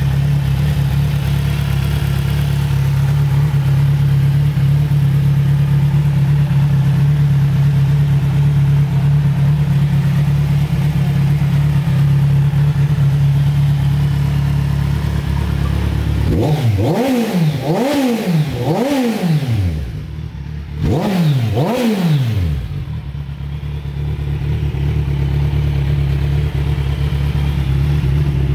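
2011 Kawasaki Z1000's inline four-cylinder engine idling steadily. About two-thirds of the way through, the throttle is blipped several times in two quick bursts, the pitch rising and falling with each blip, before it settles back to idle.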